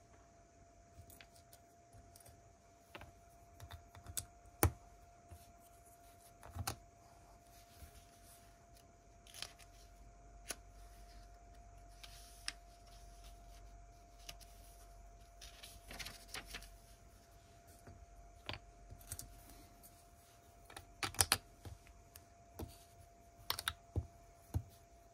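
Small plastic Lego pieces clicking and clattering as they are handled and pressed together, in irregular scattered taps, some louder clusters near the end.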